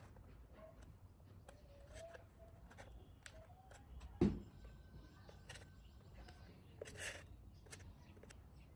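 Faint handling sounds of fingers fitting small glued wooden blocks into a thermocol (polystyrene foam) fuselage: scattered light clicks and taps, one dull thump about four seconds in, and a brief rustle near seven seconds.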